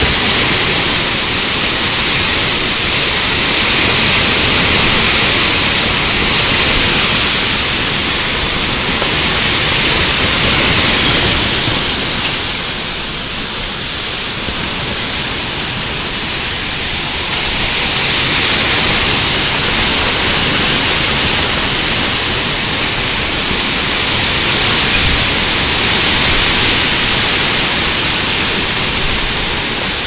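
Severe windstorm: a steady loud rush of wind through trees mixed with driving rain, easing for a few seconds about halfway through and then building again.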